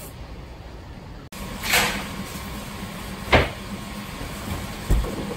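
Knocks and bumps from things being handled in a cluttered storeroom: a brief scraping rustle about two seconds in, a sharp knock a little after three seconds, and a duller thump near the end, over a steady low hum.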